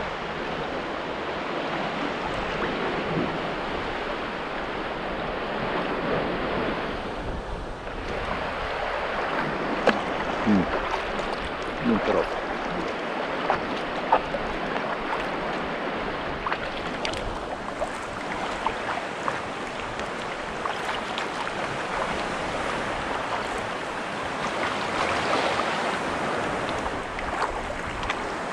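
Choppy sea water sloshing and splashing around a Prijon Seayak 500 LV sea kayak as it is paddled through waves, with wind on the microphone. A few sharper splashes stand out now and then.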